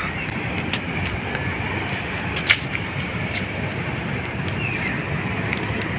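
Steady wind rushing over a phone's microphone, with scattered light footsteps on a concrete walkway and one sharper click about two and a half seconds in.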